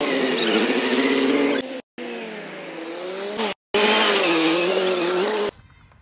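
Mahindra 475 DI tractor's diesel engine running, its pitch rising and falling with the throttle, in three short pieces with abrupt cuts between them. It gives way to a much quieter stretch near the end.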